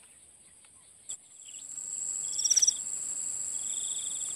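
Insects trilling in the swamp vegetation: a steady high buzz joined by pulsed trills, with a short, louder burst of rapid pulses about two and a half seconds in. The first second is quiet and ends in a click.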